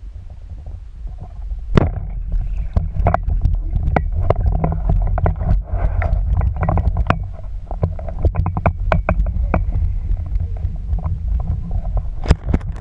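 Water noise heard through a GoPro camera's waterproof housing during spearfishing: a steady low rumble, with many sharp clicks and knocks from about two seconds in.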